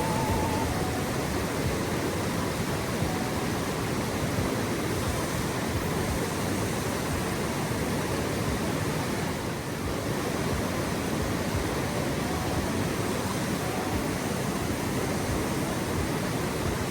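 Mountain stream water rushing steadily, a constant hiss of flowing water.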